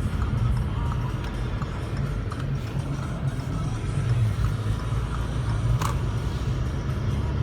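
Steady low rumble of a motor vehicle running, with music playing underneath and a brief hiss about six seconds in.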